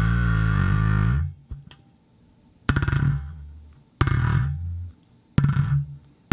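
Plastic ball knocking against a wooden box, the box ringing with a hollow, resonant tone. A ringing that is already sounding dies away about a second in. Then come three sharp knocks about a second and a half apart, each ringing on and fading.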